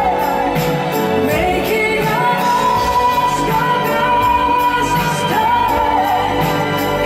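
A woman singing a pop ballad live into a microphone over band accompaniment, drawing out long held notes with vibrato over a steady beat.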